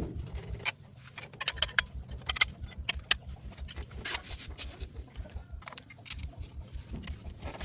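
A car engine running with a steady low throb, with a run of sharp clicks and knocks over it, most of them in the first half.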